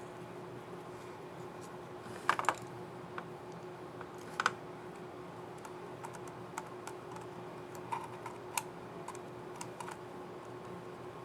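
Keys of an HP Envy 15 AS laptop keyboard clicking on their scissor mechanisms as they are pressed: a loud close pair of clicks about two seconds in, another near four and a half seconds, then lighter scattered clicks.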